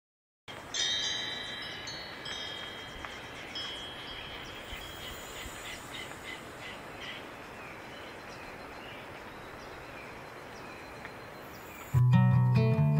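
Chimes ringing over a steady soft hiss, loudest as they start and then fading. Near the end, much louder acoustic guitar strumming comes in.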